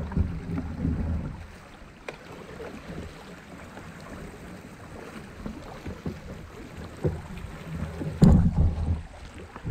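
Kayak being paddled through shallow creek water: paddle blades dipping and splashing stroke after stroke, with two louder low rumbling stretches, one near the start and one about eight seconds in.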